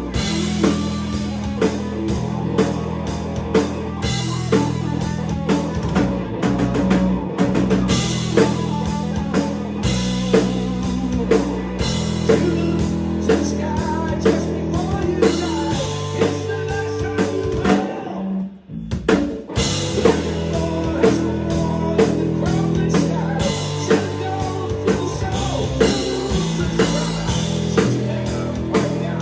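Live rock band playing, with drum kit hits on a steady beat, guitar and bass. The music breaks off for about a second about two-thirds of the way through, then comes straight back in.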